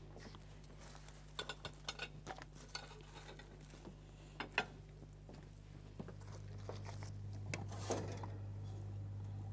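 Scattered light clinks and knocks of kitchen dishes and utensils being handled, with a sharper clunk near the end as the wall oven door is opened. A low hum grows a little louder from about six seconds in.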